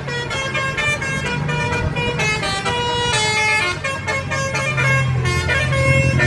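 A bus's 'telolet' multi-tone musical horn playing a quick melody of short notes that keep changing pitch, over the steady hum of the bus engine.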